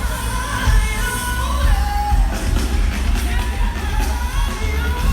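Loud music with a singing voice over a heavy, pounding bass.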